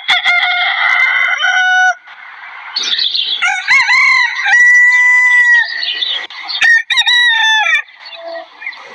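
Desi rooster crowing, several crows in a row, one with a long held note in the middle.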